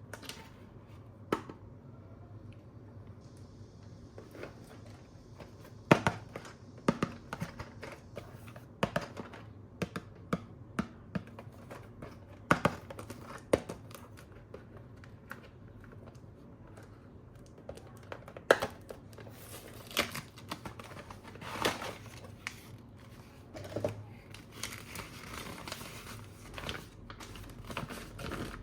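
Toy packaging being handled and opened: plastic and paper crinkling and tearing, with irregular sharp clicks and taps as pieces are moved about.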